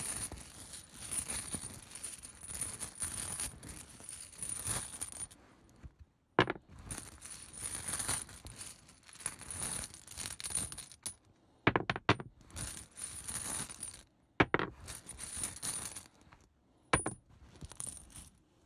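Small tarot tiles rattling together as they are shaken in a container, in several spells with short pauses between them, and a few single sharp clacks as tiles are tipped out and land.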